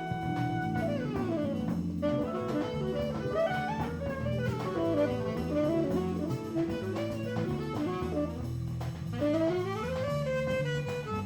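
Live jazz quartet playing: a saxophone improvises quick runs up and down over keyboard, double bass and drum kit with cymbals.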